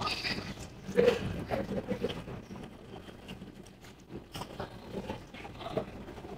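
A person eating: soft, irregular chewing and biting sounds with small mouth noises and scattered clicks.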